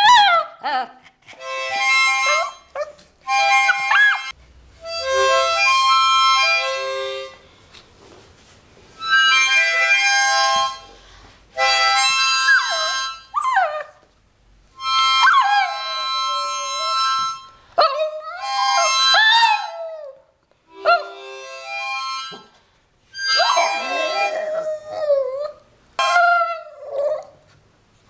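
A pet dog howling along to a harmonica. The harmonica plays phrases of chords with short breaks between them, and the dog's howls glide up and down over the music, mostly in the second half.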